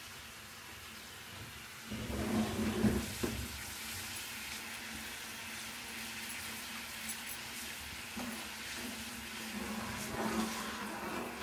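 Sago pearls boiling in water in a steel pan on a gas burner: a steady bubbling hiss. A short, louder clatter about two seconds in, and near the end a spoon stirring through the pan.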